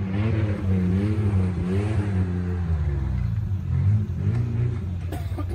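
Off-road 4x4's engine revving hard, its pitch rising and falling over and over as the throttle is worked over rough ground.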